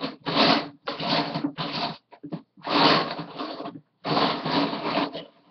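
Loose Lego bricks rattling and clattering as a hand rummages through a pile of them looking for a piece, in several short bursts.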